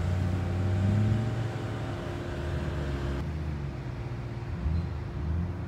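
A car engine running close by, a low steady rumble that swells about a second in and then settles.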